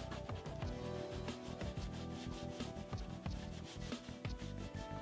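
Brown coloured pencil scratching on drawing paper in quick back-and-forth shading strokes.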